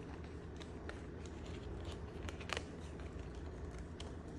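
Faint clicks and light taps of tarot cards being handled and set down, the plainest about halfway through, over a steady low hum.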